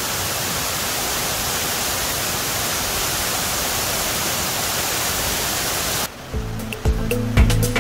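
Waterfall rushing steadily, a constant wash of falling water. About six seconds in it cuts off abruptly and background music with a beat starts.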